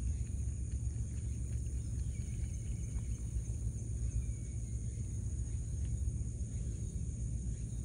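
Outdoor ambience: a low steady rumble with a high, steady insect drone, and a few faint ticks.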